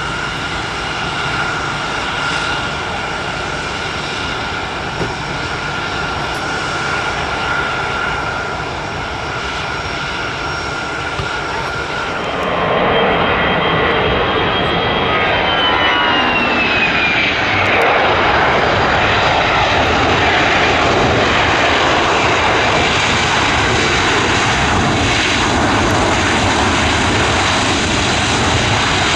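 Airbus A320 jet engines running with a steady whine as the airliner moves along the runway. About twelve seconds in the engine noise grows louder and fuller, and a high whistle slides down in pitch.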